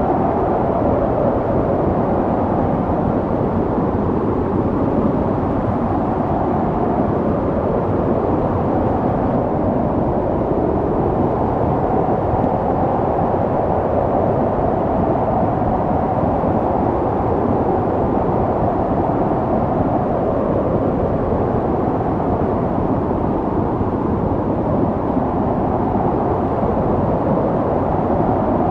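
Snowstorm wind blowing steadily, a low, even rushing without gusts or breaks.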